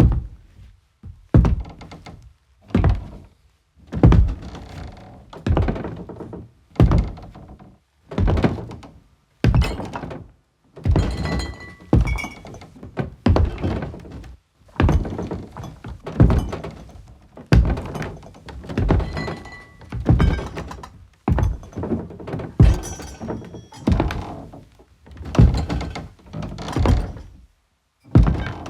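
Slow, heavy footsteps in soldier's boots on a hollow wooden floor, one deep thud about every second and a half.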